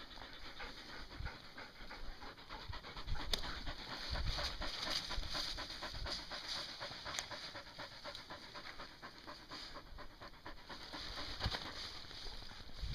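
A dog panting close by, a fast run of quick breaths, with a few low thumps mixed in.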